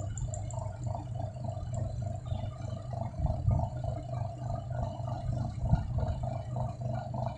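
Washing machine wash motor, a single-phase capacitor motor running unloaded in one direction, giving a steady hum with an uneven fluttering rattle above it. Two louder knocks come in the second half.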